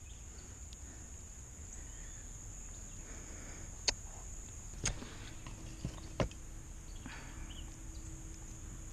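A few sharp clicks and knocks of fishing pliers and tackle being picked up and handled in a small boat while a small bass is unhooked. A steady high insect buzz runs underneath.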